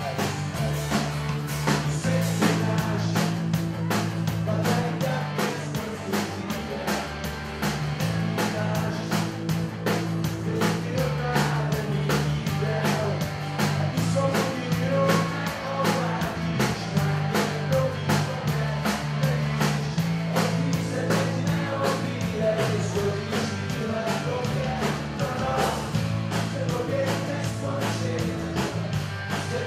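Live rock band playing a song: a steady drum beat under acoustic and electric guitars, amplified through the PA.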